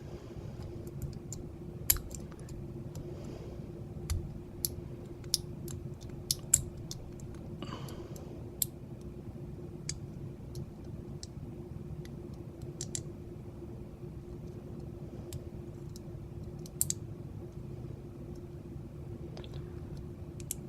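Lock pick and tension wrench working the pins of a large vintage Corbin padlock's cylinder: irregular sharp metal clicks and light scraping at uneven intervals as pins are lifted and set.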